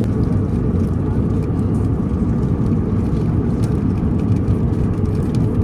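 Airbus A350 cabin noise in flight: a steady, even low rumble of engine and airflow noise heard from inside the cabin.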